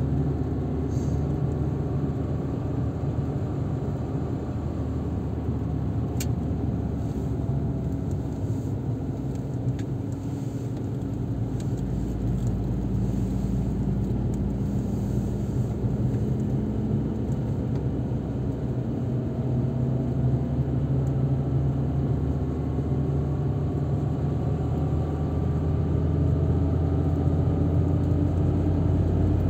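Car engine and tyre noise while driving along a road, a steady hum whose pitch drifts slowly with speed and rises gradually in the second half, getting a little louder near the end.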